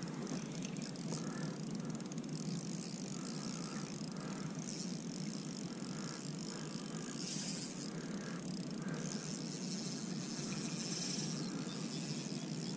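Kayak gliding on calm water: a steady low rush of water along the plastic hull, with faint light knocks.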